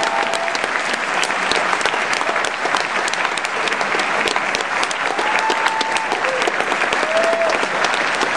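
Audience applauding steadily, a dense patter of many hands clapping, with a couple of brief shouts from the crowd about five and seven seconds in.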